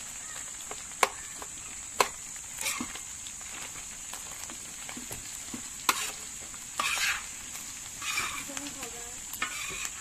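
Food frying in a sac tava, a utensil scraping and tapping against the metal pan now and then: a few sharp clicks and short scraping strokes over a steady high hiss.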